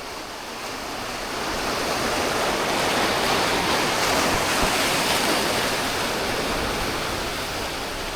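Ocean surf: a wave breaks and washes in as a rush of noise that swells about a second in and eases off near the end.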